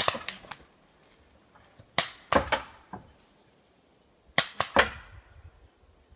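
Paintball pistol shots: three quick volleys of three or four sharp pops each, about two seconds apart.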